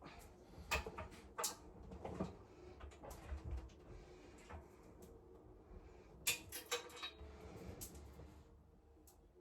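Scattered knocks, clicks and light rattles, with a quick run of sharp clicks about six seconds in.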